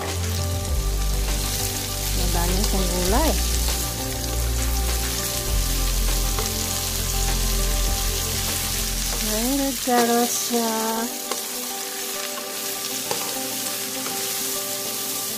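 Shredded carrots, green beans and meat sizzling as they are stir-fried in a sauté pan, a wooden spatula stirring and scraping through them. A low rumble under the sizzle stops about ten seconds in.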